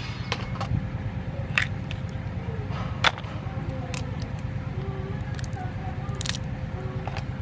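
Small raw crabs being cleaned by hand, with a few sharp cracks and snaps as each top shell is pried off the body, spaced a second or more apart. A steady low hum runs underneath.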